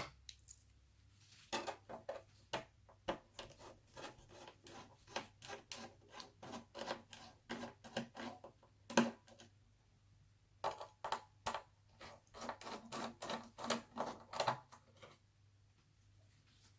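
Irregular run of small clicks, taps and scrapes from hands and a small screwdriver working on plastic and metal laptop parts and screws during disassembly. Starts about a second and a half in, pauses briefly midway and stops near the end.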